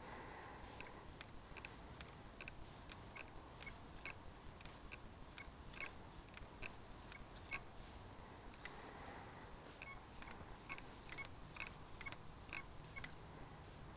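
Faint, short high-pitched beeps from a Desert Gold metal detector, about two a second, as its search coil sweeps back and forth over a 2-euro coin buried 38 cm deep. The beeps are its target signal at that depth, very quiet because the speaker is taped over with duct tape.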